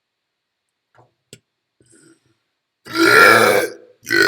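Two long, loud burps, the first about three seconds in and the second right after it near the end, each a rough pitched belch.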